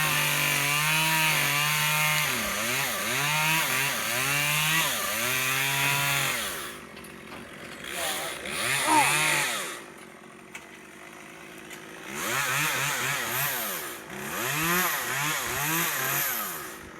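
Chainsaw running, its engine pitch rising and falling over and over as it is throttled and loaded in the cut. About seven seconds in it drops to a low idle, revs briefly once, then picks up again for several more rises and falls.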